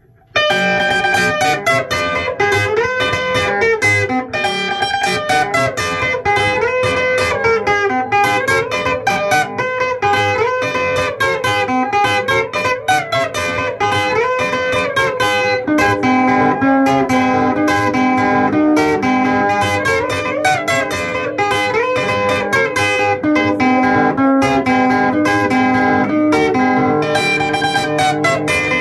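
A band playing an instrumental passage: fast plucked guitar lines over bass and a steady drum beat, starting abruptly.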